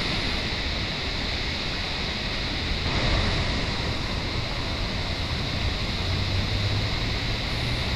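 Steady rush of fast-flowing mountain water, an even unbroken noise with a continuous high-pitched hiss over it.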